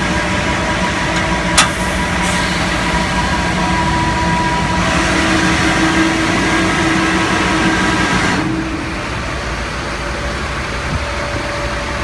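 Fuel truck's engine running with its PTO-driven fuel pump engaged, a steady mechanical whine with a hiss. A sharp click comes about a second and a half in, and about eight and a half seconds in the hiss drops away and the running gets quieter.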